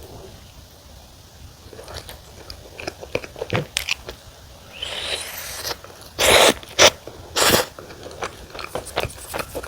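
Close-miked biting and chewing of wood-fired sweet potato pizza: many small crackles of chewing, with a few loud crunchy bites about six to seven and a half seconds in.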